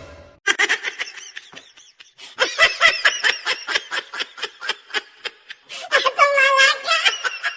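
A person laughing hard in quick repeated bursts, breaking into a longer high-pitched squeal of laughter near the end.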